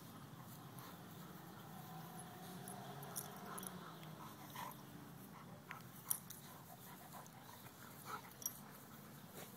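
Two Labrador retrievers play-fighting, faint overall. A drawn-out dog vocal sound rises and falls in pitch about two to four seconds in, and there are a few sharp clicks as they tussle.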